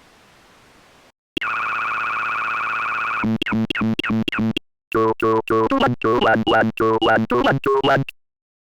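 STSpeech text-to-speech synthesizer for the Atari ST glitching. After a second of faint hiss, it holds a steady buzzing tone for about two seconds, then breaks into rapid stuttering robotic syllables with short gaps between them.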